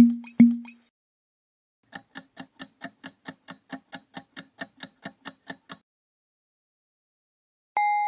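Quiz-show sound effects: two quick low pops at the start, then a countdown timer's clock ticking evenly, about four or five ticks a second for roughly four seconds. Near the end a single sustained bell-like ding sounds as the countdown runs out.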